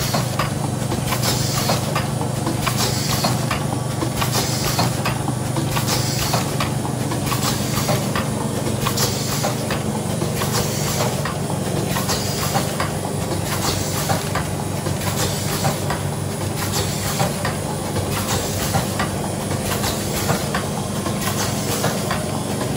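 QM CRTD 01 automatic cosmetic-pouch filling and sealing machine running through its cycle: a steady machine hum with bursts of air hiss about once a second and light mechanical clicks from the pneumatic grippers and cylinders.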